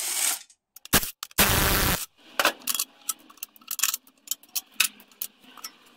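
Cordless impact wrench rattling bell housing bolts loose on an automatic transmission case: short bursts at the start and about a second in, then a longer burst of about half a second. After that come scattered small metallic clicks and clinks as the bolts and socket are handled.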